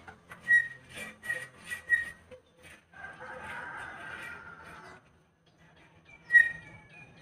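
Steel tire iron striking and prying against a truck tire's steel rim: a run of sharp metal clinks with a short ringing tone in the first two seconds, a scraping stretch from about three to five seconds, and one loud ringing clink near the end.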